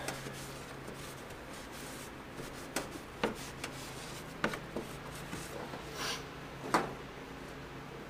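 Shop rag rubbing and wiping around an engine's fuel fitting to clean off leaked fuel, with a few scattered light knocks and clicks over a faint steady low hum.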